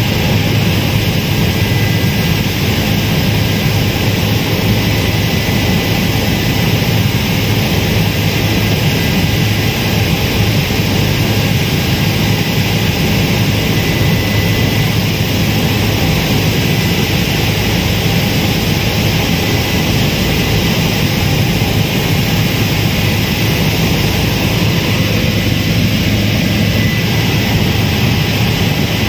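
Helicopter engine and rotor noise heard from inside the cabin in flight: a loud, steady hum that holds the same level throughout.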